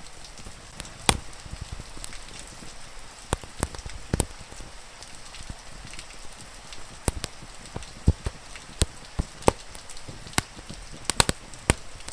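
Wood fire crackling, with about a dozen sharp pops at uneven intervals, over the steady hiss of falling rain.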